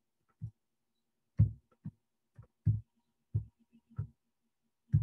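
Computer keyboard keys pressed one at a time, about eight dull thumps at uneven intervals, as a typed command is erased and retyped.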